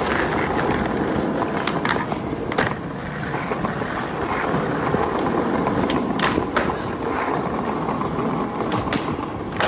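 Skateboard rolling on a paved sidewalk: a steady rumble of the wheels over the pavement, with sharp clicks now and then.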